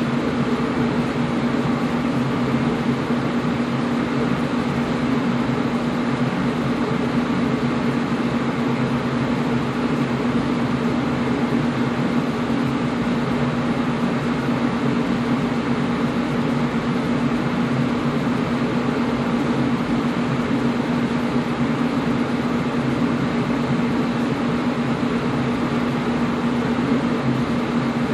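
Air conditioner running steadily: an even whooshing noise with a low hum.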